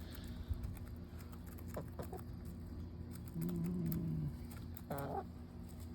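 Backyard hens calling softly while feeding: a held low call of about a second near the middle and a short call about five seconds in, with a few faint taps.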